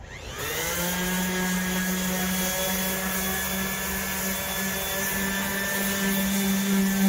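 Handheld power sander with a coarse pad starting up, winding up to speed within about half a second, then running steadily with a steady whine as it sands the enamel paint on a steel panel.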